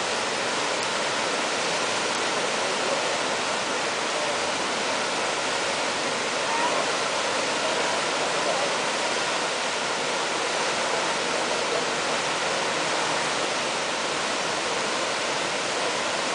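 Steady rushing of whitewater as the fast river current breaks over the Eisbach standing wave, an even, unbroken noise.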